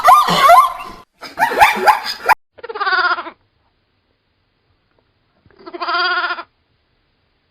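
Two quavering bleats, each under a second long, about three seconds apart. Before them comes a noisier stretch of rapid, warbling animal sound that stops about two seconds in.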